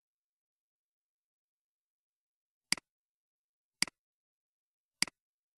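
Computer mouse button clicking three times, about a second apart, each a quick press-and-release click.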